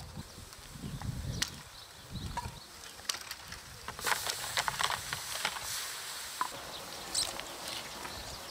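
Scattered light clicks and scrapes of a spoon against a bowl as thick red pepper paste is scooped and spread.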